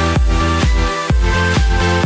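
Background electronic music with a steady beat, about two beats a second, under sustained synth notes.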